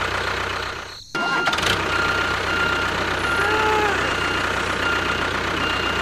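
Tractor engine running steadily. It fades and drops out just before a second in, then cuts back in abruptly and runs on steadily.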